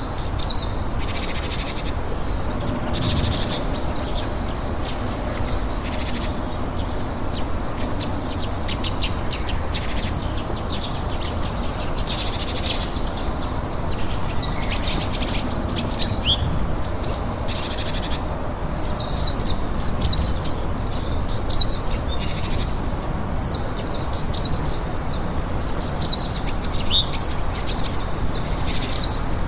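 Small songbirds chirping and singing, with many short, quick high notes close together throughout, over a steady hiss of falling rain.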